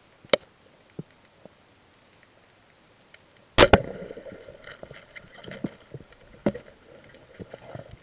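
Multi-band rubber speargun fired underwater: a sharp crack about three and a half seconds in as the bands release the shaft, followed by a ringing tone and scattered rattling clicks. A single sharp click comes just after the start.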